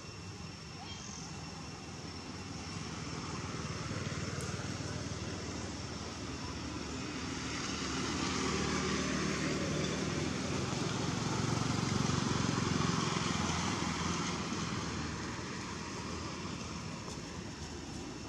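An engine drones past, rising slowly to its loudest about twelve seconds in and then fading away.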